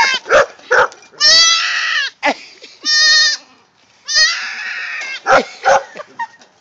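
Newborn goat kid bleating over and over, three long loud calls with short sharp sounds in between. The kid is about four hours old and is calling for its mother.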